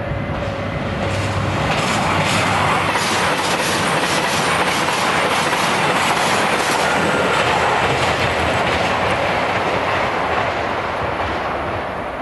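HOT7000-series diesel limited express running through a station at speed. Its wheels clack in a steady rhythm over the rail joints, swelling about two seconds in and fading toward the end as the train passes.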